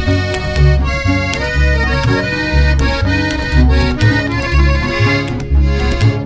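Instrumental norteño music: an accordion plays the melody over bass notes on a steady beat, with no singing.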